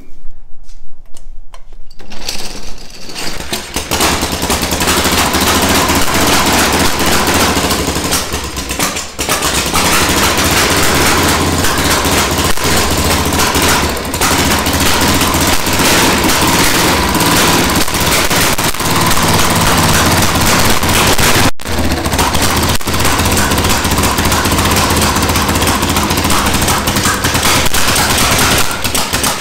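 Engine of a 1965 Harley-Davidson pan/shovel V-twin chopper, kick-started on its first start after sitting about twenty years. It catches about two seconds in and runs loud and rough with rapid, irregular popping; the crew find it burning fuel before it gets into the cylinders.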